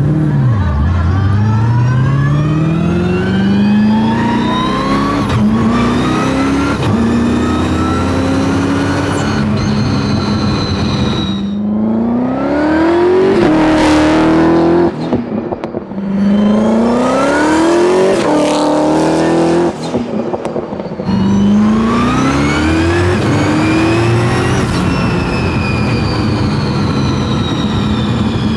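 Twin-turbo, supercharged Ford Coyote V8 of a roughly 1,000 whp Mustang accelerating hard. The revs climb again and again and drop at each shift of its sequential gearbox, and the sound dips briefly twice, a little past the halfway mark and about two-thirds of the way in.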